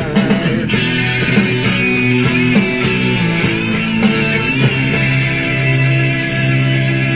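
Rock music with guitar playing loudly through a homemade Bluetooth speaker box: a coaxial car speaker mounted in a wooden box with a round bass port.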